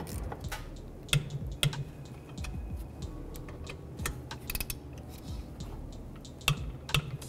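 Irregular light metal clicks and taps from the brake caliper and its slider pin bolts, which are being threaded in by hand and seated on the caliper bracket.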